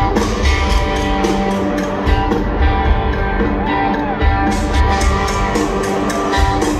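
Live rock band playing over a stadium sound system, with electric guitars and drums on a steady beat, heard from the stands.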